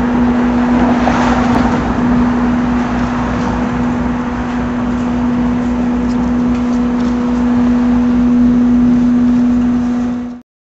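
City street traffic noise with a steady low hum from a nearby motor holding one pitch; the sound cuts off suddenly near the end.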